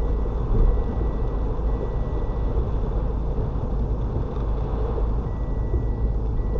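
Mitsubishi Mirage ploughing through deep floodwater, heard from inside the car: a steady low rush of water against the body mixed with engine and road noise, swelling briefly about half a second in.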